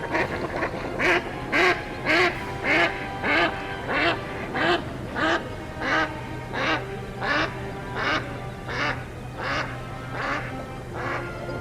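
A duck quacking over and over, about one and a half quacks a second, growing fainter through the stretch, over steady background music.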